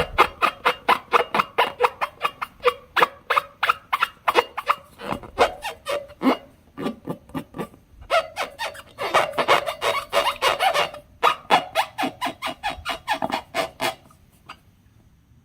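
Slime being kneaded and pressed by hand: a rapid run of sticky clicks and squelches, several a second, which stops about a second before the end.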